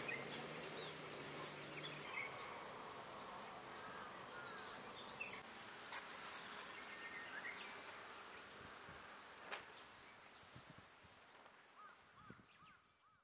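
Faint outdoor ambience with scattered short bird chirps, with a low steady hum for the first two seconds; it slowly fades out toward the end.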